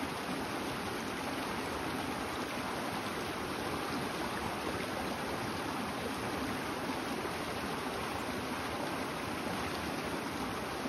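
Mountain stream rushing and splashing over rocks and small cascades, a steady even rush of water.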